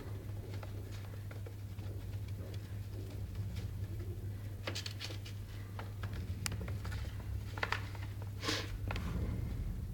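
A folded sheet of paper rustling and being tapped as powdered match-head sulfur is poured from it into a pen-cap funnel: scattered light crinkles and clicks, the loudest in the second half. A steady low hum runs underneath.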